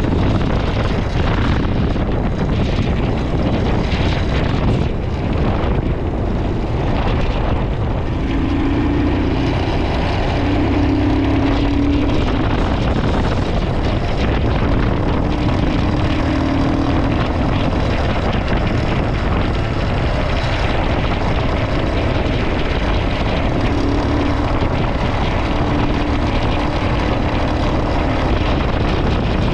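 Royal Enfield Himalayan 411's single-cylinder engine running under load on a rough off-road climb, mixed with wind and road noise. A steady drone from the engine rises out of the noise several times from about eight seconds in.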